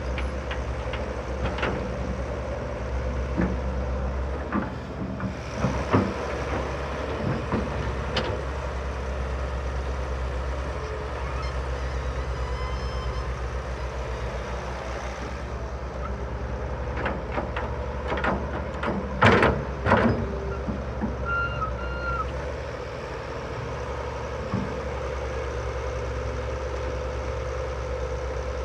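Heavy diesel engines of a Cat excavator and a truck running steadily while soil is dug and loaded, with loud metal clanks and thuds from the bucket, the loudest about six seconds in and again around two-thirds of the way through. A couple of short beeps sound shortly after the loudest clanks.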